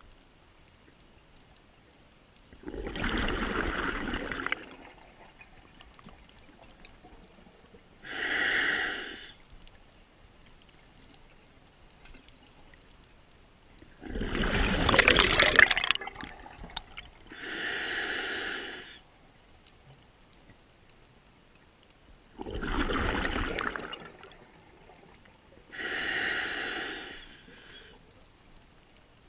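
Scuba diver breathing through a regulator underwater: three slow breaths, each a rumbling rush of exhaled bubbles and, a few seconds later, a hissing inhale through the demand valve. The second exhale is the loudest.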